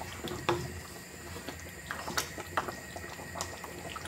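Lamb and potato curry bubbling and sloshing in an aluminium pot as a wooden spatula stirs it, with a few sharp taps of the spatula against the pot.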